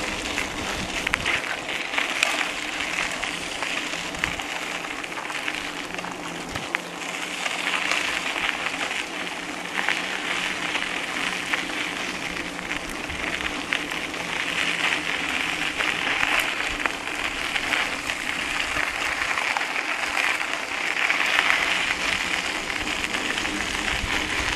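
Bicycle rolling along a dirt and gravel road: a steady crunching hiss of the tyres, with small clicks and rattles from the bike. It swells and eases as the surface changes, and is picked up by a camera mounted on the bike.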